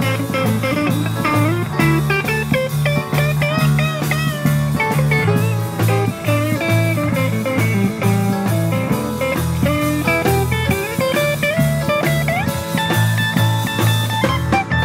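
Live band playing electric guitar, drum kit and keyboard, with a guitar lead of bending notes over a steady low bass line and a regular drum beat.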